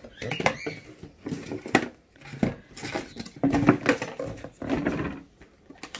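Cardboard rustling, scraping and knocks as a white camera box is lifted out of a cardboard shipping carton and the carton is handled.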